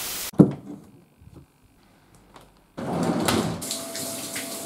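A brief burst of TV-static hiss, then a sharp knock about half a second in. From about three seconds in a shower runs, with water spraying steadily.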